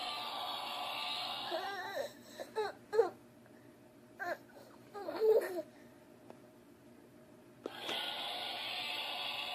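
A small child whimpering and crying in a few short cries that rise and fall in pitch. Before the cries, and again near the end, a steady rushing noise is heard.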